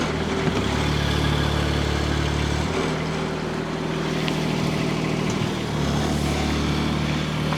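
Kubota D902 three-cylinder diesel of a Hightop HT20 Pro mini excavator running steadily, its note shifting a few times as the hydraulic controls are worked.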